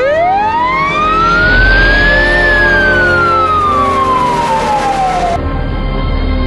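Fire truck siren sounding one slow wail: it rises in pitch for about two seconds, falls slowly, and cuts off about five seconds in, with background music underneath.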